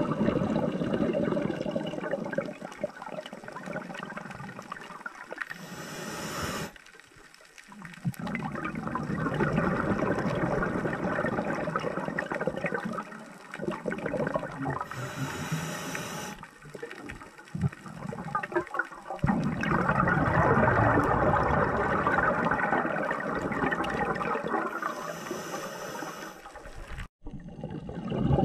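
Scuba diver breathing through an open-circuit regulator underwater: three short high-pitched hissing inhalations about ten seconds apart, each followed by a long rush of exhaled bubbles.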